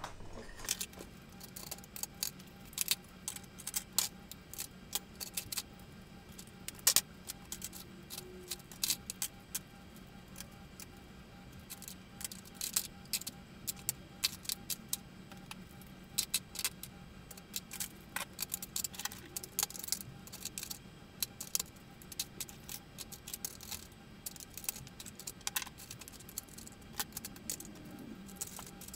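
Metal kitchen utensils clinking and clattering against one another and against plastic cutlery trays as they are picked up and sorted: many short, sharp clicks at an uneven pace, over a steady low hum.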